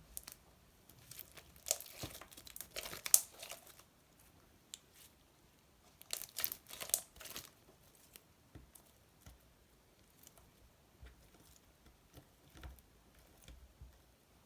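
Slime being handled close to the microphone, crackling and crinkling in two bursts about two and six seconds in, then a few faint scattered clicks.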